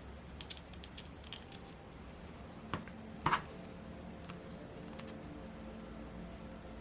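Small sharp clicks and taps of parts and tools being handled during engine reassembly, with two louder clicks about three seconds in, over a faint steady hum.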